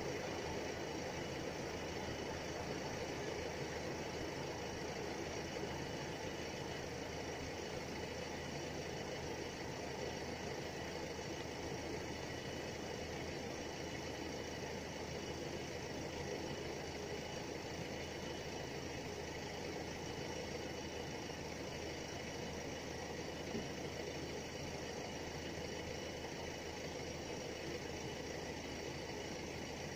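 Steady outdoor background noise, an even low rumble and hiss with no distinct events; the crossing's bell is silent.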